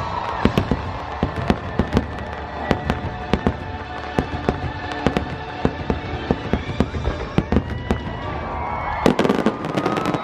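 Fireworks finale barrage: rapid bangs and crackles, several a second, with a dense burst of crackling about nine seconds in.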